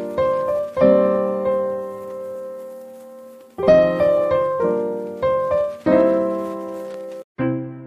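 Background piano music: slow chords, each struck and left to ring and fade, with one long held chord about a second in and a brief break near the end.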